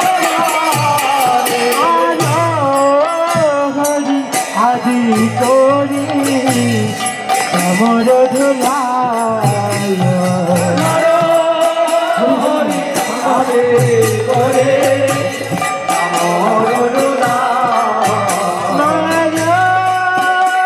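Kirtan: devotional chanting of a mantra sung to melody, with jingling hand-cymbal percussion keeping the beat.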